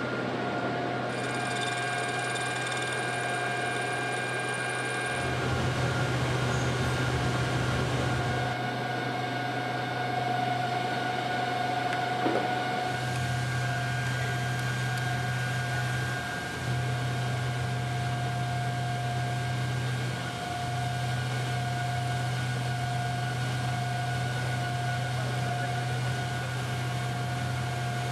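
Steady low mechanical hum with a thin, steady high whine above it, shifting in level a few times, with one small click about halfway through.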